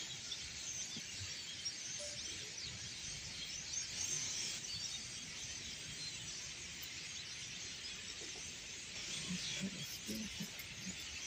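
A huge flock of European starlings chattering all together: a dense, unbroken din of many overlapping squeaky calls and clicks.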